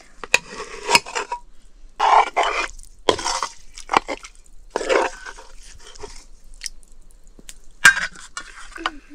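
Metal dishes and utensils clinking, knocking and scraping in a series of short, irregular bursts.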